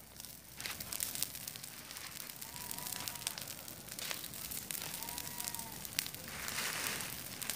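A pile of dry leaves and dead weeds burning, giving off an irregular run of sharp crackles and pops from the flames.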